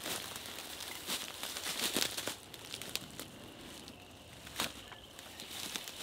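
Dry reeds, grass and twigs crackling and crunching under rubber boots as a person steps about and crouches in a reed thicket, in irregular bursts loudest about one and two seconds in and again near the end.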